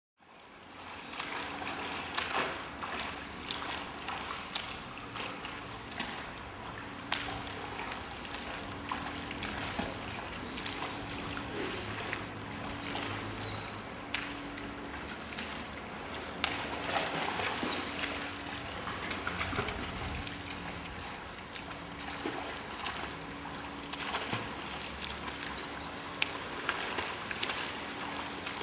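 Water splashing and sloshing as a child swims a length of a pool, with sharp splashes recurring every couple of seconds.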